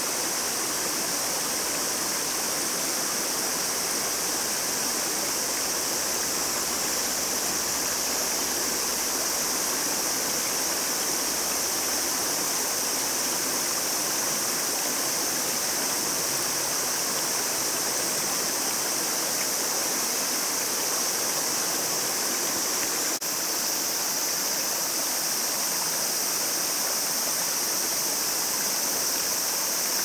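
Steady rush of a shallow river flowing over stones, with a momentary break about two-thirds of the way through.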